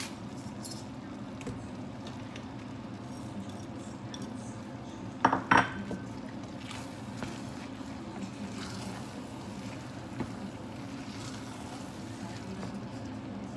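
A pepper mill grinds with a few clicks at the start, then a wooden spoon stirs thick risotto in a stainless steel pot with soft scraping. About five seconds in come two or three sharp clinks with a short ring, the loudest sound.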